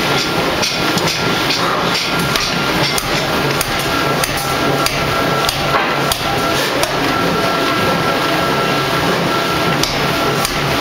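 A ring rolling machine running loud and steady as it rolls a red-hot steel ring, with a thin steady whine over a low hum. Frequent, irregular sharp metal knocks of forging blows sound throughout.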